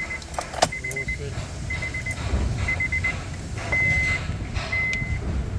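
Steady low rumble of a running vehicle engine, with a repeating electronic warning beep: quick clusters of short beeps about once a second, then, from a little past the middle, longer single beeps about once a second. A sharp click about half a second in.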